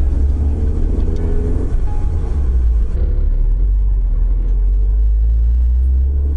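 Car engine running with a heavy, steady low rumble. In the first couple of seconds its pitch rises a little.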